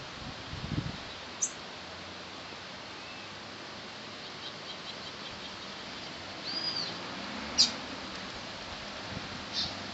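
Steady hiss of falling rain, with birds chirping over it: sharp high chirps about a second and a half in, near the end of the eighth second and near the end, and an arched whistled call about six and a half seconds in.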